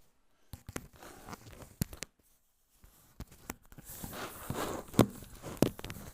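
Handling noise: rustling and scraping with a series of sharp clicks and knocks, the loudest knock about five seconds in.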